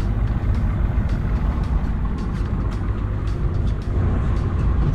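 Boat's outboard motor running steadily, a low rumble with wind and water noise over it and scattered light clicks.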